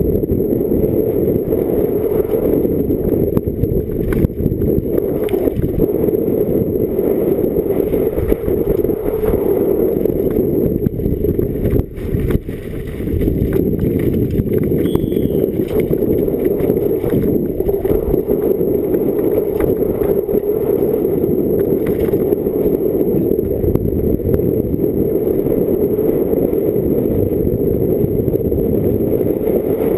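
Downhill mountain bike descending a rough gravel track at speed: a steady, muffled rumble of wind on the microphone and tyres and frame rattling over the stones, briefly easing about twelve seconds in.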